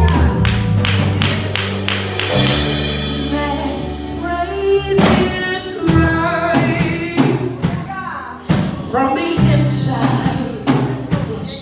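Live gospel worship music: a church band with sustained keyboard and bass notes and percussion hits, with voices singing over it.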